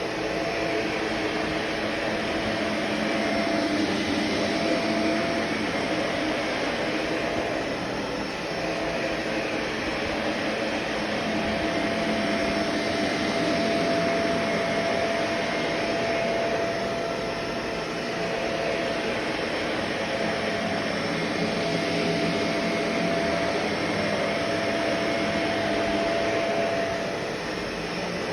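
Vacuum cleaner running steadily: a rush of air with a constant motor whine, rising and falling slightly in loudness.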